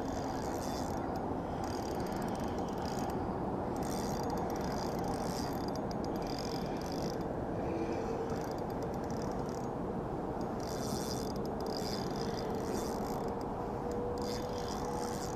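Spinning reel being cranked while a smallmouth bass is fought in, its gears and clicks rattling in repeated short runs over a steady low rush.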